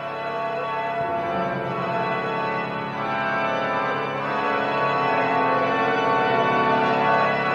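Organ music: dense chords held and swelling, with some notes sliding slowly in pitch.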